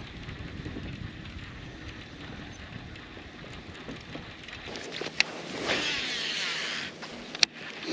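A cast with a baitcasting rod and reel: a click, then the spool whirring for about a second and a half as line pays out, stopped by a sharp click near the end. A low steady rumble runs under the first few seconds.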